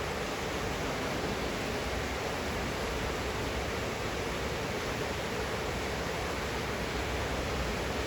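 Steady rain falling: an even, unbroken hiss with no separate drops or other events standing out.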